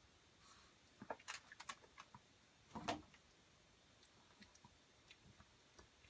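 A Chihuahua eating, faint irregular crunches and clicks of chewing, in a run about a second in and one louder crunch near the middle.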